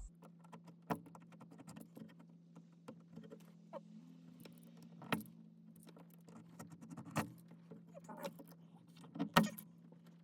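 Scattered light clicks and taps of hand work on a camper shell's sliding screen window frame, fitting the new screen and its rubber spline, over a steady low hum. The sharpest tap comes near the end.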